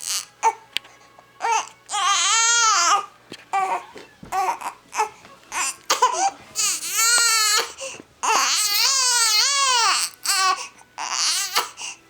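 Baby crying: four long cries that rise and fall in pitch, with short sharp sounds between them.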